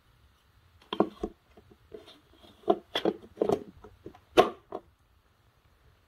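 Handling noise on the plastic body and attachments of a Dirt Devil upright vacuum cleaner, which is switched off: a string of irregular plastic clicks and knocks with some rustling, the loudest near the end.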